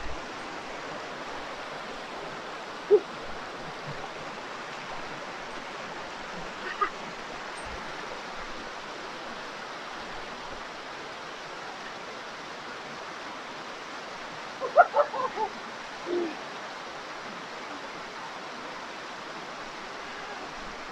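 Steady rushing of a river's flowing water, with a few short pitched calls breaking in, the loudest cluster a little past the middle.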